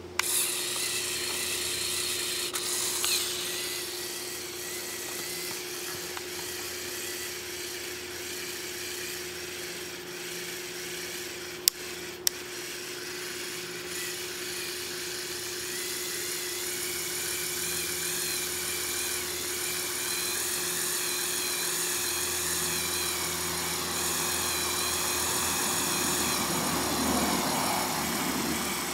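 Lego Technic 8258 crane truck's electric motor switched on and running steadily with a whine of plastic gears, driving the crane through its gearbox on weakening batteries. Two sharp clicks about twelve seconds in.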